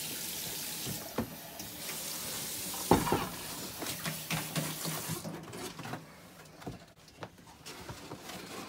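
Tap water running into a stainless-steel sink, with scattered light knocks of plastic cups, one sharper knock about three seconds in. The water noise falls away after about five seconds, leaving only a few soft knocks.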